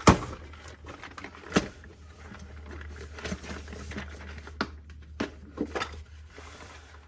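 Small parts and plastic containers being handled and rummaged through: a sharp click right at the start, another about a second and a half in, and a cluster of clicks and rattles around five to six seconds, with light rustling between, over a steady low hum.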